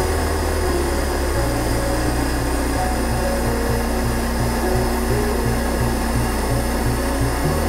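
Hand-held gas blowtorch burning with a steady hiss, its flame held on exhaust wrap. Background music with a pulsing bass line comes in at the start and plays over it.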